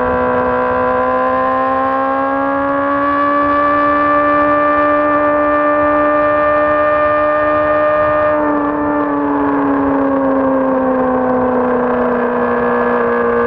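2006 Honda CBR600RR's inline-four engine running at high, steady revs, its pitch creeping slowly upward. About eight seconds in, the sound turns softer and the pitch sinks slowly.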